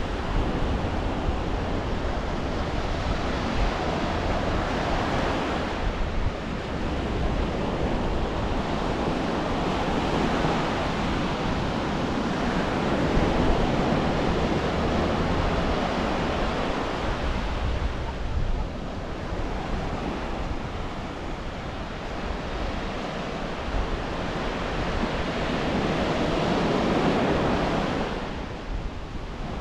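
Surf breaking and washing up a sand beach, swelling and easing every several seconds, with a low wind rumble on the microphone.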